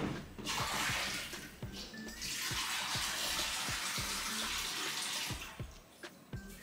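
Water running from a kitchen tap into a bowl at the sink to refill it with fresh water: a short rush about half a second in, then a steady run of about three seconds that stops near the end.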